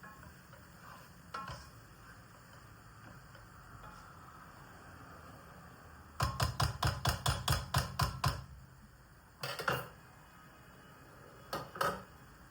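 Kitchen knocking: a rapid, even run of about ten knocks, roughly five a second, then two short pairs of knocks.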